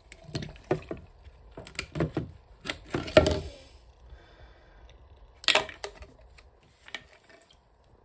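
Plastic condensate trap from a Worcester Greenstar Junior boiler being knocked and shaken over a ceramic basin to empty it: a run of sharp, irregular knocks with splashes of dirty water, the loudest about three and five and a half seconds in. The trap is clogged with sludge that has built up in it.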